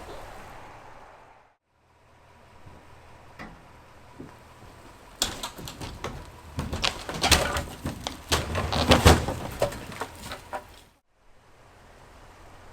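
Demolition noise: a run of irregular knocks, bangs and creaks as the unsafe structure is worked on and pulled at, busiest and loudest in the middle of the stretch, with brief dead silences near the start and near the end.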